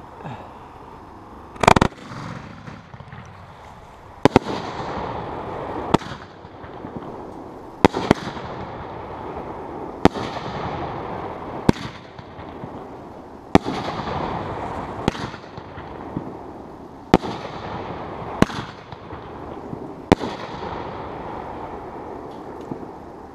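Consumer firework cake (multi-shot repeater) firing its tubes in sequence: a loud first blast about two seconds in, then about ten more sharp bangs, one every one and a half to two seconds, with hissing and crackling between the shots.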